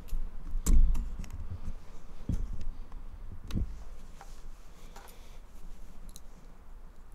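Scattered clicks and soft knocks, roughly one a second. The three loudest, in the first four seconds, have a low thud to them, and fainter clicks follow.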